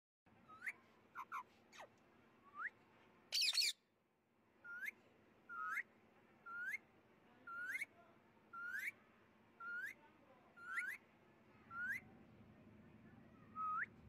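White Indian ringneck parakeet giving short, rising whistled calls, about one a second. There is one louder, harsh screech about three and a half seconds in.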